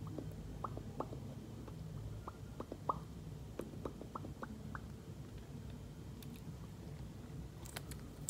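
Faint wet lip smacks and pops as lipstick-coated lips are pressed and rubbed together to blend the colour, about a dozen short ones over the first five seconds. One sharp click at the very end.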